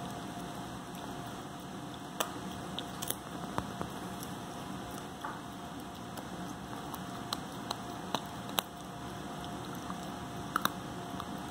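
Corgi puppy chewing a dental chew with its side teeth, giving irregular sharp clicks and crunches a second or two apart.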